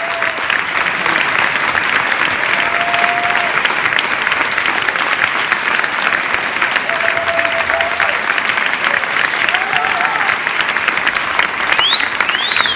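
Audience applauding steadily, with a few short calls from the crowd rising above the clapping.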